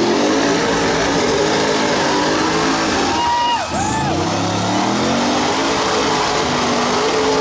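Mud-bogging buggy's engine running hard at high revs as it drives through a deep mud pit, its spinning tires churning the mud. The revs climb at the start, sag briefly about halfway through, then climb back and hold high.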